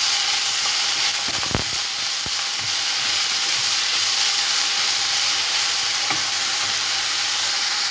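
Chopped onion sizzling steadily in hot oil in a stainless-steel frying pan as it is stirred with a wooden spoon, sautéing until golden. A few light knocks of the spoon against the pan.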